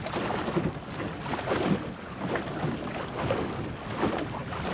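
Water rushing and gurgling along the hull of a small sailing skiff moving at about 10 knots, with wind buffeting the microphone.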